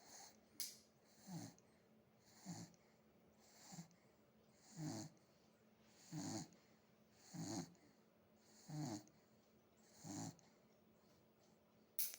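A sleeping pet snoring in a steady rhythm, about nine snores roughly a second and a quarter apart, with a short sharp click near the end.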